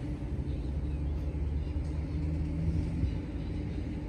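Steady low rumble with a constant hum, like a vehicle engine running.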